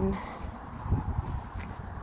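Uneven low rumble of walking and handling noise on a phone microphone, with a soft thump about a second in.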